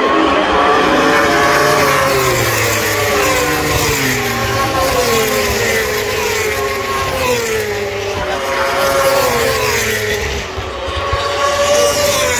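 Racing superbike engines passing at speed, their notes sliding down in pitch one after another.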